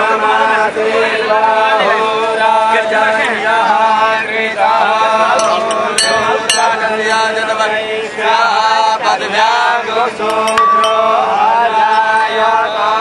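Hindu aarti chant sung by men, with a steady low tone underneath. Two sharp metallic clinks come about six seconds in.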